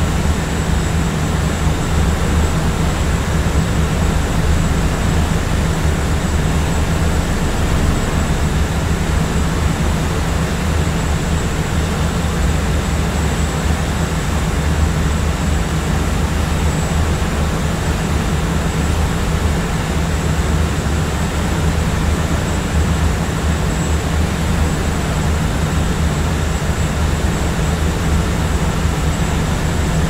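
Steady cabin noise of a jet airliner in flight: a constant low hum of engines and airflow, with a faint thin high tone above it.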